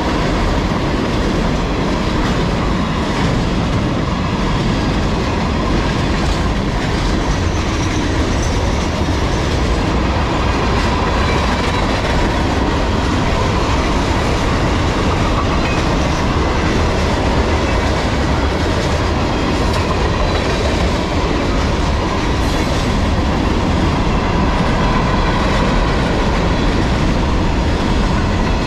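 Freight train cars rolling past close by, a steady loud rumble with the clatter of wheels over the rails.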